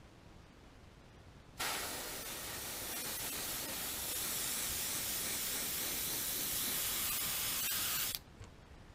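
Airbrush spraying paint: a steady hiss that starts sharply about a second and a half in, runs for about six and a half seconds, and cuts off suddenly near the end.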